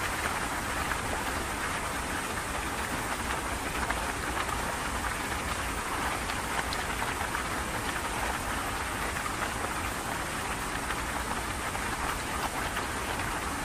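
Fast-flowing floodwater and rain: a steady, unbroken rush of water.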